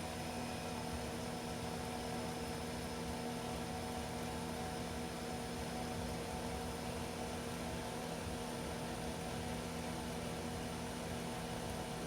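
Refrigerator compressor running with a steady hum, on a refrigerant circuit charged past its target pressure; the compressor is very hot.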